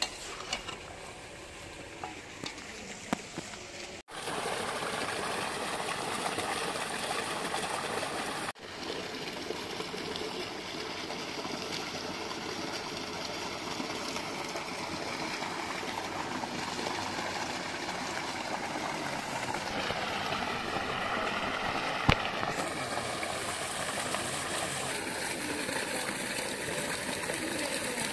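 Steady rush of running water from about four seconds in. Before it come a few light clinks of a spoon stirring in a metal pot, and there is one sharp click past the middle.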